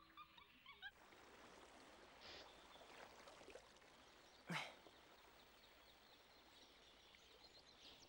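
Near silence: faint forest ambience with one brief, sharp sound a little past halfway.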